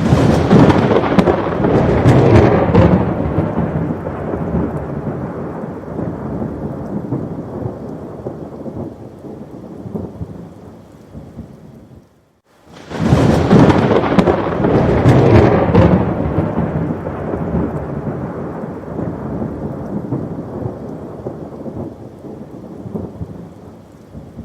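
Thunderstorm: two thunderclaps about thirteen seconds apart, each a sharp crack that rolls into a deep rumble fading over about ten seconds, with rain falling. A short near-silent gap comes just before the second clap.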